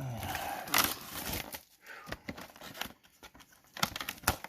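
Plastic shrink wrap on a cardboard collection box being punctured and torn off, crinkling densely at first, then in scattered crackles and taps, with one sharper tap near the end.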